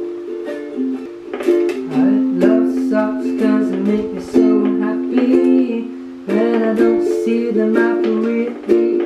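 Ukulele strummed in chords, the chord changing every second or two.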